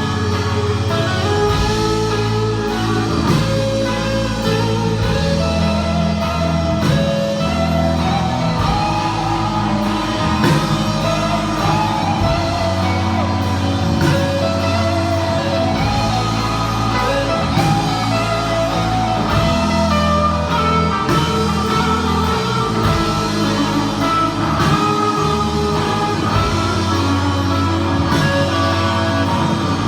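A band playing a pop-rock song, with guitar, steady bass and a drum kit keeping a beat.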